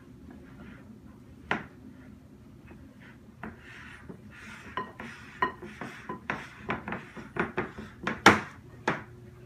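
A spoon stirring a stiff, thick oat and peanut butter batter in a mixing bowl, scraping and knocking against the bowl. Mostly quiet at first with a single click, then from about four seconds in a quick run of scrapes and knocks that grows louder toward the end.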